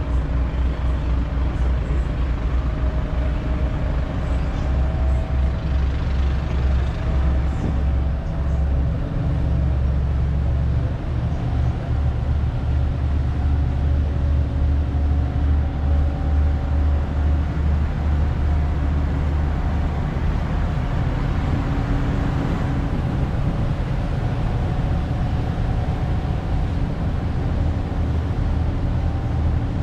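Catamaran ferry's diesel engines running steadily while under way, a constant low drone with a few steady tones on top, mixed with the rush of the churning propeller wake.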